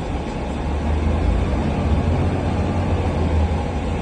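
Fire engine running, heard from inside the cab: a steady low engine rumble with road noise.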